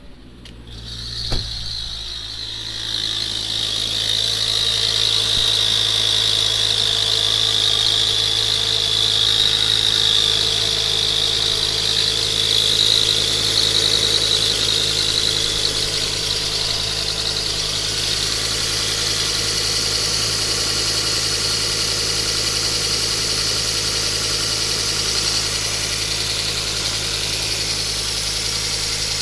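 Ford Focus ST mk2's turbocharged 2.5-litre five-cylinder engine idling steadily, with a high whistling whine over the idle. The owner traced this noise to the exhaust manifold and its gasket bolts rather than the turbo. A single sharp click sounds about a second in.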